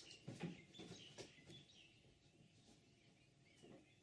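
Near silence, with a few faint bird chirps in the first second or two.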